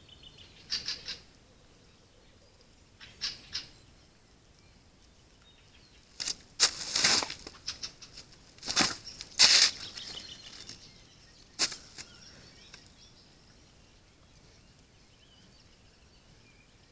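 Moose right at the trail camera making a series of short, noisy bursts in clusters, loudest about halfway through, over a faint steady high whine from the camera.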